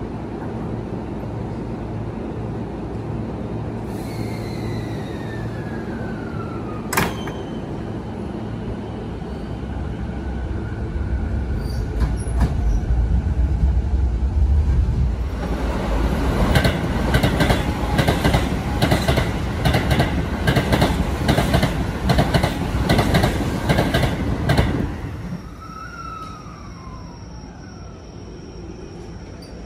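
Toei 10-300 series electric commuter trains at a station platform: a steady low hum from a standing train, then a train running in alongside the platform with a quick, regular clatter of wheels over rail joints. The sound drops off suddenly and gives way to a quieter steady hum with a short falling tone.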